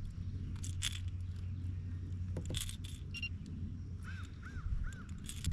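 Short clattering rattles of fishing gear being handled in a kayak, over a steady low rumble. Near the end a bird calls three short, evenly spaced notes.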